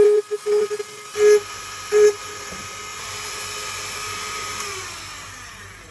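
Rotary engraving tool running with a high whine, its bit grinding in short bursts against the tinted plastic tail-light lens during the first two seconds. It then runs free and its pitch falls as it winds down near the end.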